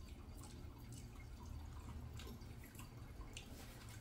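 Quiet room tone: a faint steady low hum with a few soft, scattered ticks like small drips.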